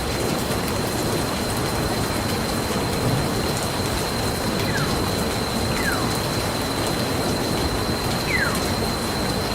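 Nature-sound ambience of steady rushing water, with a thin, steady high tone running through it. Three short falling whistles come in the second half.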